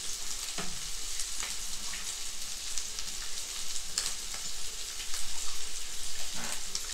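A wooden spoon stirs pork-and-blood stew (dinuguan) in a pot, scraping against the pot several times over a steady sizzle as the blood sauce cooks down.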